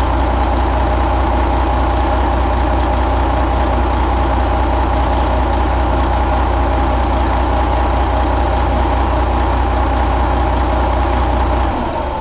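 Detroit Diesel Series 60 11.1-litre inline-six diesel engine idling steadily on a run stand. It is shut off about half a second before the end, and the low rumble drops away.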